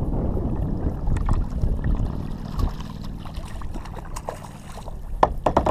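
Wind rushing over the microphone and water sloshing around a kayak, with a quick run of sharp clicks near the end.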